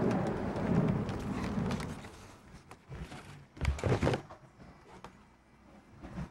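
Sliding glass patio door being moved and passed through: a few sharp thuds about three and a half to four seconds in, after a low rumble that fades away over the first two seconds.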